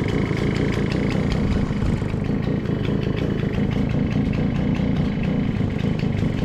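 A small 50 cc motorcycle engine idling steadily.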